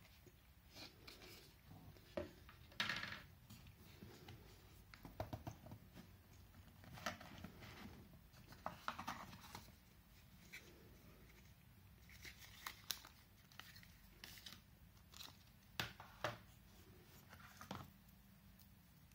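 Soft, intermittent handling of cardboard packaging: quiet scrapes, rustles and taps as a box insert is lifted and a small accessory box is opened, with a few sharper clicks scattered through.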